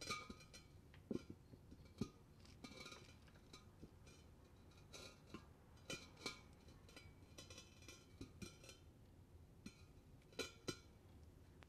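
Faint, irregular clinks and taps of hard objects, a few with a short ringing tone, over a low steady hiss.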